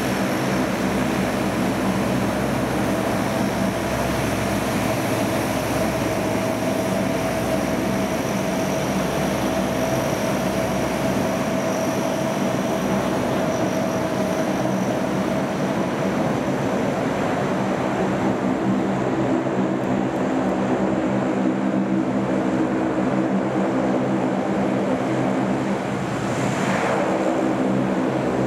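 Lockheed C-130 Hercules four-engine turboprop running steadily: a constant, even drone of propeller and engine tones with no rise or fall in pitch.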